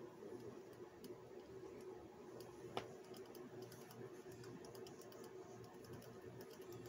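Faint, scattered light clicks and ticks of a pet rat's claws as it moves about on a chair, with one sharper click about three seconds in, over a faint steady hum.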